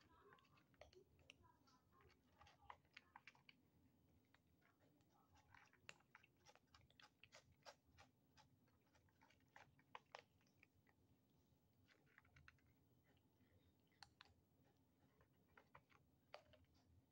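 Kittens chewing dry cat food from a plate: a run of faint, quick crunches and clicks, with short pauses between bouts.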